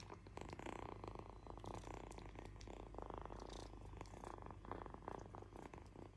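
Kitten purring close up, a faint buzzing purr that swells and dips in repeated waves with its breathing.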